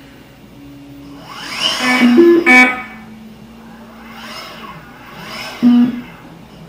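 Inmotion V12 electric unicycle's hub motor spinning the wheel up and back down twice, a whine that rises and then falls as the wheel is tipped forward and brought back to centre to simulate a hard brake. Short two-pitch beeps from the wheel sound at the peak of the first spin-up and again near the end of the second, and a sharp click comes about two and a half seconds in.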